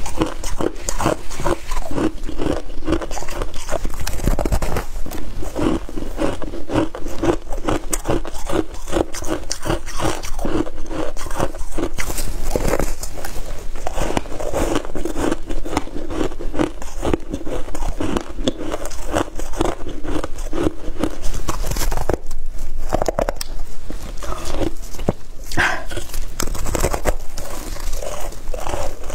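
Close-miked biting and chewing of a chunk of soft, snowy freezer frost: a dense, continuous run of quick crunches and crackles.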